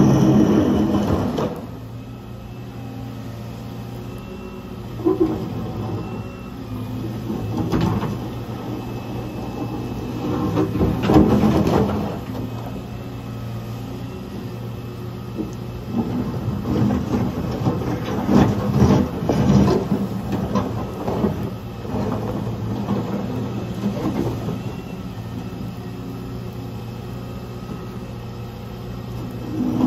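Volvo ECR145 EL excavator's diesel engine running steadily under load, with several spells of scraping and clattering as its bucket tears up and drops slabs of asphalt paving.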